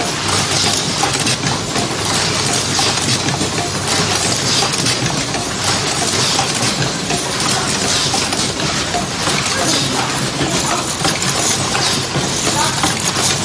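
Automatic artist-brush assembly machine running: a dense, steady clatter of many small clicks, like metal ferrules rattling in a vibratory bowl feeder and pneumatic actuators working, over a low steady hum.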